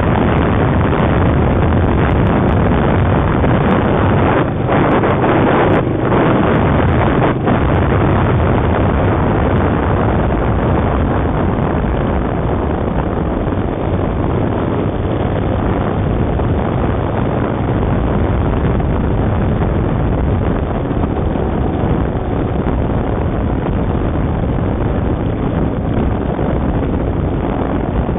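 Loud, steady wind rush and buffeting on the microphone of a camera mounted on a moving bike, with a few brief dips in the first several seconds, easing slightly later on.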